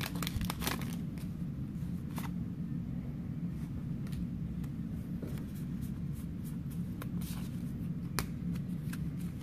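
Pokémon trading cards being handled: slid one behind another in the hand, with scattered soft flicks and clicks, over a steady low hum.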